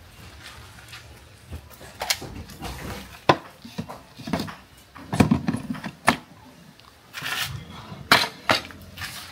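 Kitchenware being handled: irregular clinks and knocks of dishes and utensils, a few of them sharp, among softer scraping and rustling.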